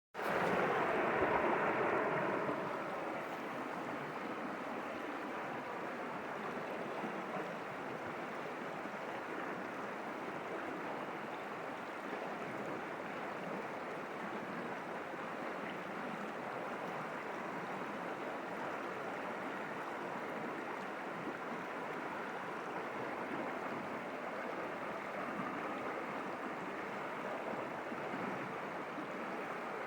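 Small stream rushing and gurgling over rocks, a steady noise of flowing water, a little louder in the first couple of seconds.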